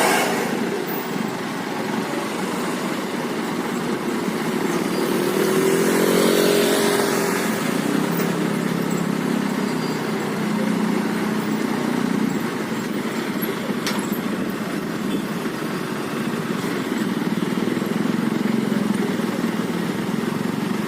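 Engines of vehicles in slow, jammed road traffic running and passing, one passing loudest about six seconds in.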